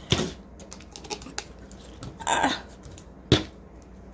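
Thick clear slime being stretched and pressed by hand, giving scattered small clicking pops. Three louder clicks and crackles stand out: one just after the start, a longer one a little past halfway, and a sharp one about three-quarters through.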